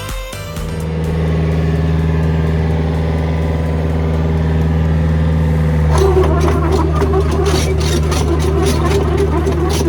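Backhoe's diesel engine running steadily. About six seconds in, it grows a little louder and a rhythmic rattle at about four beats a second joins in.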